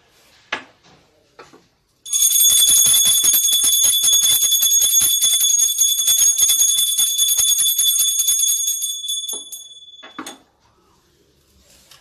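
Small puja hand bell rung rapidly and without a break for about seven seconds, its clapper striking fast under a bright, high ringing. The ringing then stops, with one last stroke a moment later.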